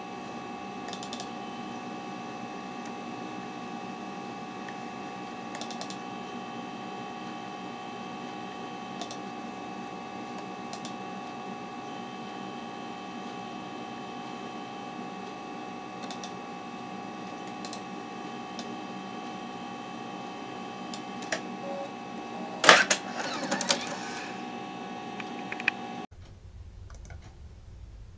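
Steady hum with several held tones from a running Macintosh SE setup, with occasional single mouse clicks and a louder cluster of clicks about 23 seconds in. The hum cuts off suddenly a couple of seconds before the end.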